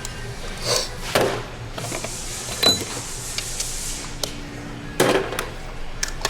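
A few scattered sharp knocks and clicks, with a short swish about two seconds in and a brief low steady tone in the middle.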